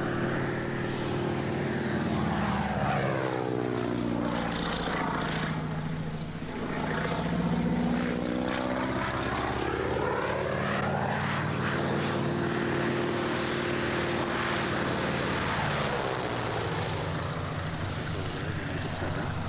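Small propeller biplane flying past, its piston engine droning steadily. The engine note sweeps down and back up in pitch several times as the plane passes and turns.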